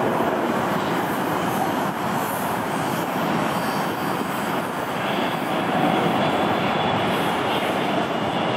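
Jet noise from an Airbus A380-861's four Engine Alliance GP7200 turbofans on final approach, a steady rushing rumble that holds an even level.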